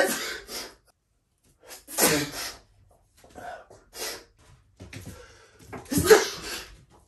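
A man sneezing again and again, the loudest sneezes at the start, about two seconds in and about six seconds in, with smaller ones between: a bout of cat-allergy sneezing.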